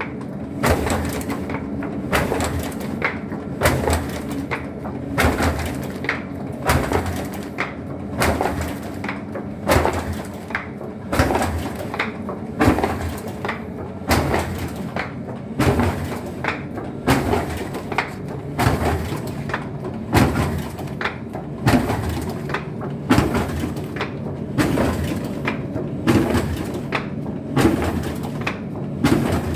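Print-shop machine fitted with an automatic paper-feed attachment running in its work cycle: a steady mechanical hum with a sharp clack about once a second and lighter clicks between.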